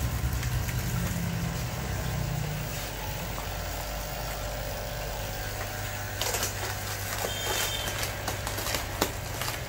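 A steady low hum, stronger for the first few seconds. From about six seconds in comes the crinkling and crackling of a water-filled plastic fish bag as it is twisted shut and tied off with a rubber band.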